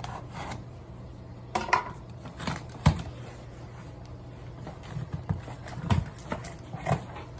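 A knife slitting the packing tape on a cardboard shipping box, then the cardboard flaps being worked open: scattered scrapes, rustles and sharp knocks, the sharpest about three seconds in, over a low steady hum.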